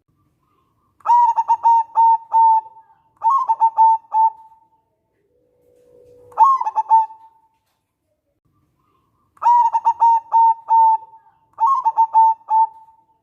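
Local zebra dove (perkutut) cooing: five phrases of quick, rolling coos, each about a second long, the first two and last two close together with a longer pause before the middle one.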